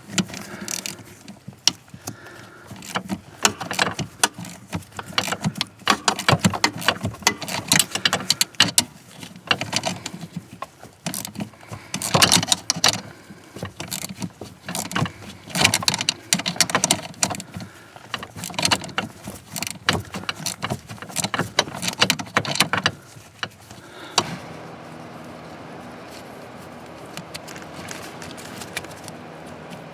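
Hand tools working a fastener loose: a busy run of irregular metallic clicks and rattles. Near the end the clicking stops, leaving a steady hum.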